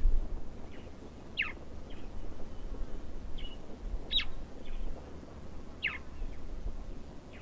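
A bird repeating a short, sharply falling call, three clear calls about two seconds apart with fainter notes between them, over a low background rumble.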